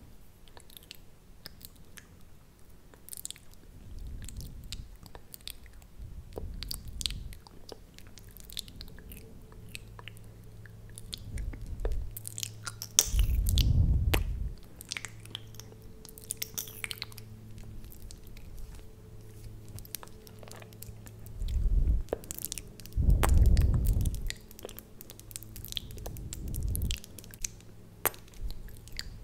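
Close-miked wet mouth sounds: lip smacks and quick sticky clicks from lip-glossed lips, scattered throughout. Several deep, muffled low rumbles come up against the microphone, the longest and loudest at about 13 seconds and again about 23 seconds in.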